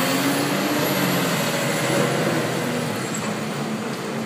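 Garbage truck's diesel engine running as it drives along a snow-covered street, slowly fading, over a steady hiss.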